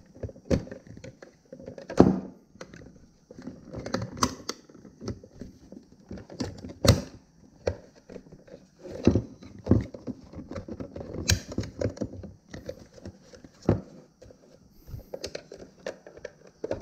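Irregular clicks, taps and knocks of a plastic fuel pump module being handled and fitted back together, its bucket, hanger rods and wiring loom knocking against each other, with sharper knocks about two, seven, nine, eleven and fourteen seconds in.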